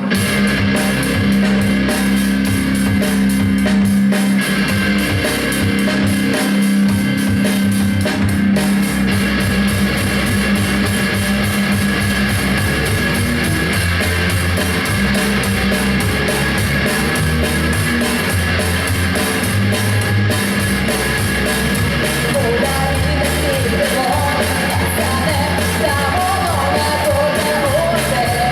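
Heavy rock music: distorted electric guitars, bass and a drum kit playing a song's intro. A higher wavering melody line enters about three quarters of the way through.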